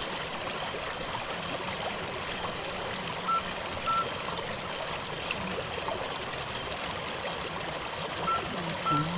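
Shallow stream water running and trickling steadily. A pair of short, high beeps sounds about three seconds in, and another pair near the end.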